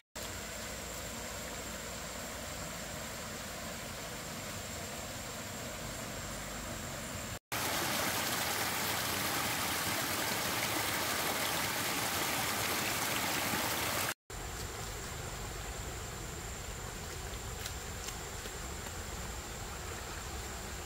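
Steady rush of running water from a stream. In the middle, for about seven seconds between two abrupt cuts, the rush of water is louder and fuller; either side it is quieter, with a faint steady high whine over it.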